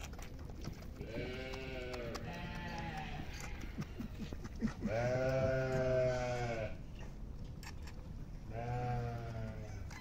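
Sheep bleating: four long, quavering bleats, the loudest about five seconds in. The sheep are calling while they wait to be given grass.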